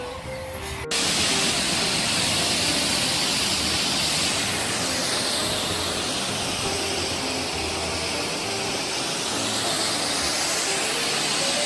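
Whangarei Falls waterfall rushing: a loud, steady roar of falling water that cuts in suddenly about a second in, over soft background music.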